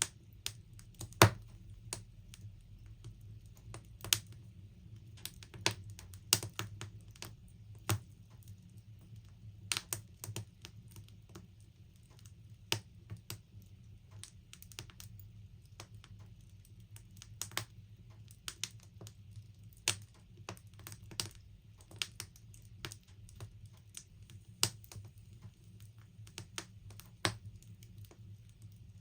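Wood logs burning in a log burner, crackling with irregular sharp snaps and pops, the loudest about a second in, over a faint steady low hum.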